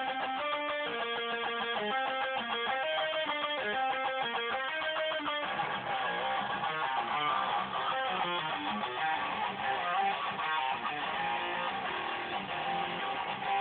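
Jackson RR24XT electric guitar played through a Line 6 Spider IV 150-watt amp: a quick single-note melodic line for the first five seconds or so, then a denser, fuller passage.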